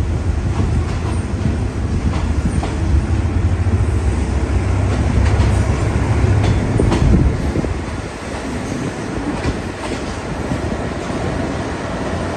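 Train running on the rails: a low rumble with scattered clicks and clacks from the wheels, the rumble easing off about seven seconds in.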